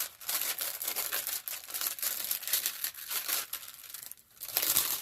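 Crinkling and rustling of a folded diamond painting canvas being handled and opened out, in irregular bursts that ease off briefly and pick up again near the end.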